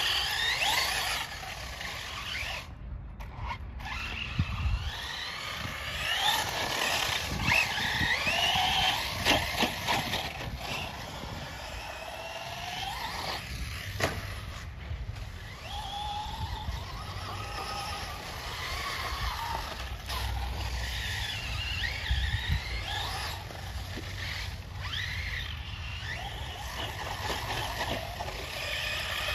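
Electric radio-controlled short-course truck's motor whining as it drives, the pitch rising and falling over and over with the throttle, with a couple of brief gaps where the sound cuts.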